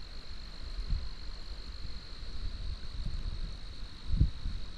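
A steady insect trill, one unbroken high note, over wind buffeting the microphone in low gusts, with a stronger gust about four seconds in.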